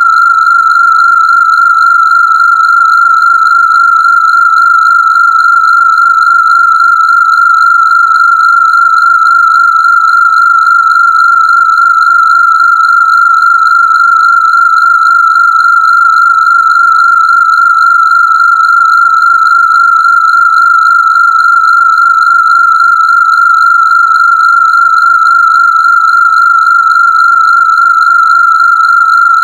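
A steady, high-pitched synthesized Rife-frequency tone, held at one pitch without change.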